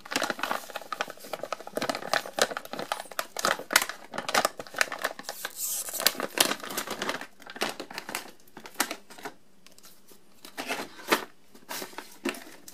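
Crinkly plastic pouch of Wiley Wallaby licorice being handled and opened: a dense run of sharp crackles and rustles for about seven seconds, then scattered crinkles near the end.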